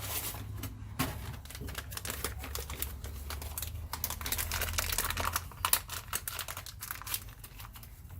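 Quick, irregular clicks and rustles of small plastic caster-wheel bushings being handled and picked out to be shown.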